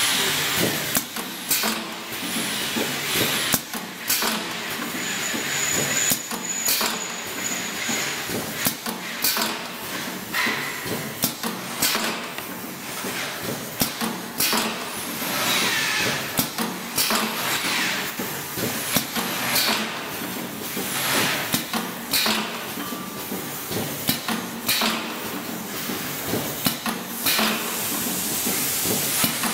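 PM 190H2L vertical honey sachet packing machine running, with sharp clacks and short air hisses from its pneumatic piston filler and sealing jaws repeating in a steady cycle of about 46 bags a minute.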